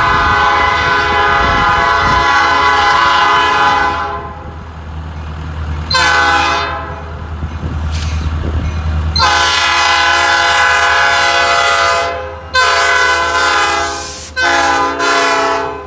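Diesel freight locomotive's multi-note air horn sounding a series of blasts: a long blast that ends about four seconds in, a short one about two seconds later, a long one, then two shorter ones near the end. The locomotive's engine rumbles low underneath throughout.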